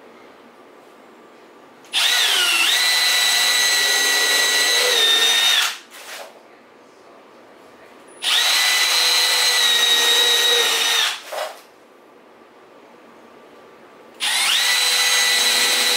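Cordless drill boring pilot holes into 2x6 wood: three runs of about three to four seconds each, the motor winding up at the start of each, a steady high whine, with short pauses between.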